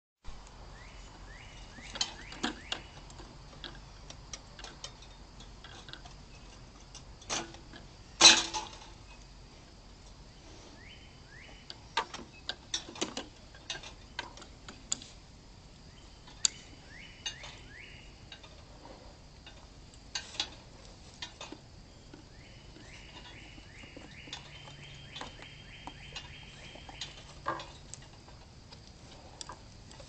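Plastic bird feeder clicking and knocking against its metal pole as a black bear handles it, with one loud knock about eight seconds in. A bird sings runs of short, quickly repeated falling notes several times, the longest run near the end.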